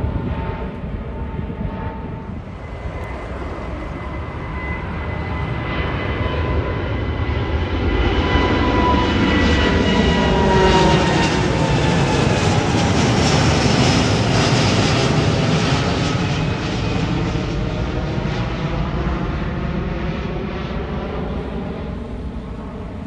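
Twin Rolls-Royce Trent 1000 turbofans of a British Airways Boeing 787 at takeoff power, climbing out overhead. The jet noise builds, is loudest about halfway through, then fades as the aircraft flies away, and a fan whine falls in pitch as it passes.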